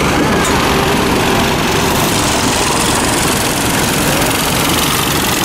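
Boat engine running steadily, loud and close, with a fast low throb and a steady rushing noise over it, as heard on the deck of a river tour boat under way.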